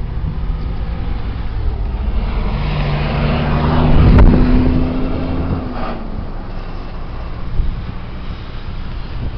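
Motor vehicle engine hum with road and wind noise. The hum swells to its loudest about four seconds in, then fades.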